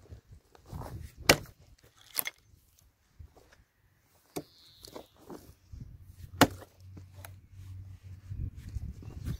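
A 1500 g Hultafors Agdor axe chopping into a fallen log: several sharp blows a second or more apart, the loudest about a second in and again a little after six seconds in.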